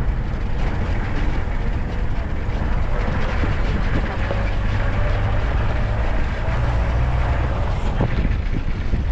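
Safari vehicle driving, a steady engine and road rumble with wind rushing over the microphone.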